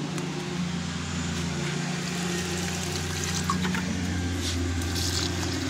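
Water pouring from a watering spout onto potted plants, over the steady low hum of a lawn mower engine running.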